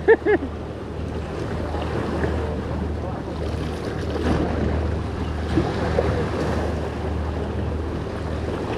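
Sea waves washing against shore rocks, with wind buffeting the microphone. A few short, loud pitched sounds come right at the very start.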